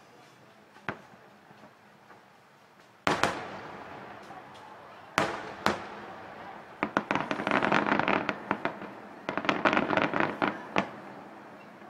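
Aerial firework shells bursting. A few faint distant pops come first, then a loud single boom about three seconds in and another about two seconds later, each dying away. Then comes a rapid volley of many sharp reports for about four seconds, which stops shortly before the end.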